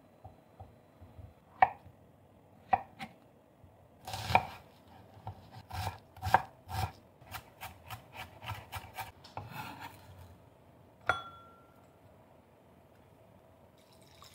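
Kitchen knife chopping onion on a wooden cutting board. A few separate knocks come first, then a quick run of chops at about three to four a second, and one last sharp knock with a brief ringing tone.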